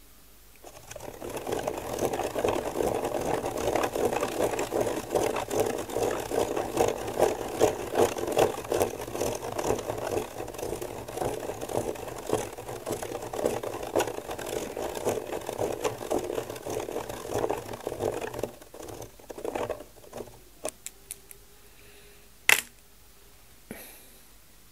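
Spirograph drawing: a pen set in a plastic gear wheel is driven round inside a toothed plastic ring, the teeth clicking against the ring and the pen scratching the paper in a continuous fine rattling whir. It stops about eighteen seconds in, followed by a few separate clicks and one sharp tap near the end.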